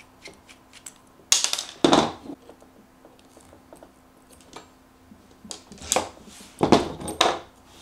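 Metal hand tools clicking and knocking against a 3D printer hotend as it is taken apart with a small screwdriver and pliers. There are a few sharp clicks, two about a second and a half in and a cluster near the end.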